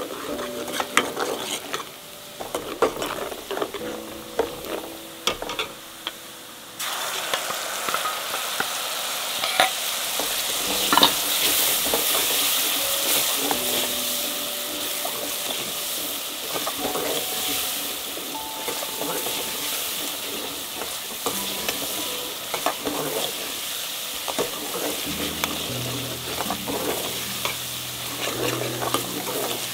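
A metal ladle scrapes and stirs onions frying in oil in an aluminium pot. About seven seconds in a loud, steady sizzle sets in suddenly as the curry powder mixed with water goes into the hot oil, and the ladle keeps scraping through the sizzling.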